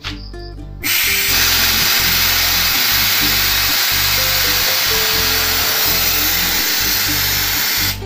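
Compressed air hissing out of a Matrix 1 HP 25-litre air compressor's tank through its outlet valve, letting out the air left in the tank. The hiss starts suddenly about a second in and cuts off abruptly just before the end. Background music with a steady bass runs underneath.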